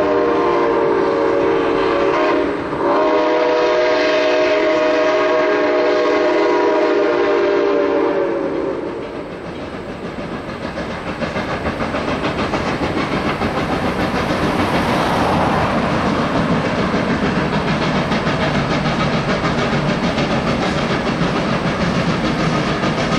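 Steam locomotive's chime whistle blowing a long blast of several notes at once, broken briefly about two and a half seconds in and then held until about eight seconds in. After it, the working locomotive and the train running on the rails carry on, getting louder over a few seconds as the train approaches.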